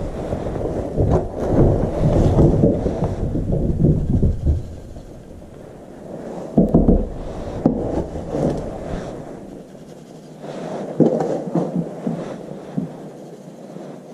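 Plastic scoop scraping and sifting through granular cat litter in a plastic litter box, with a few sharp taps of the scoop against the box. The sound comes in irregular bursts, heaviest in the first few seconds, mixed with the rustle of sleeves close to the microphone.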